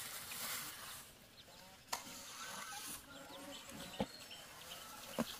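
Steel trowel scraping wet cement mortar for about the first second, then chickens clucking faintly, with three sharp taps of the trowel against the render.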